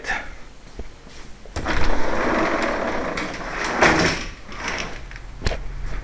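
A sliding door rolling along its track for about two and a half seconds, with a sharp knock near the end.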